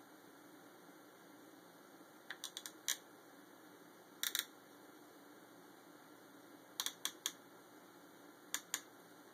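Plastic zip tie being ratcheted tight as a clamp, clicking in short runs: four quick clicks about two seconds in, a double click near four seconds, four more around seven seconds and two near the end.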